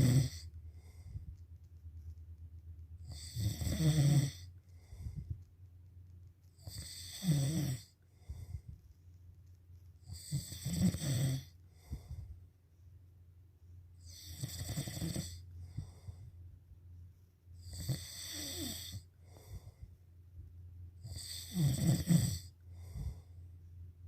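Snoring in slow, regular breaths, about one snore every three and a half seconds, each a rough low rattle with breathy hiss. A steady low hum runs underneath.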